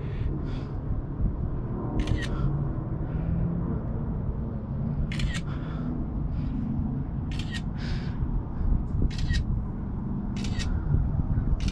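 Phone camera shutter clicks, about six of them at irregular intervals of one to three seconds, as several photos are taken of how the battery cables are laid out. A steady low rumble runs underneath.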